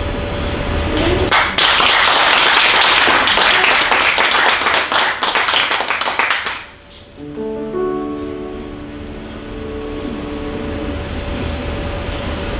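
Audience applause for a choir, which stops fairly suddenly after about five seconds. About seven seconds in, a piano starts playing soft, held chords.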